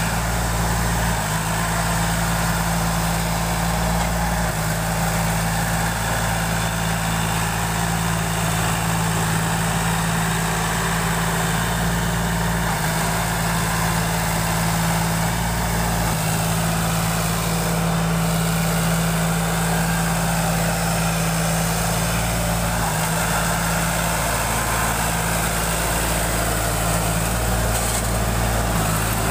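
Sonalika tractor's diesel engine running steadily, its low pitch shifting slightly a few times.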